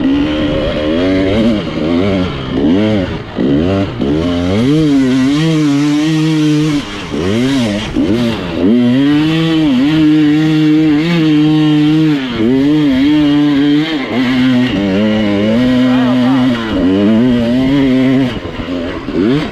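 Dirt bike engine revving in repeated surges, climbing and dropping in pitch, and held at steady high revs for several seconds at a time.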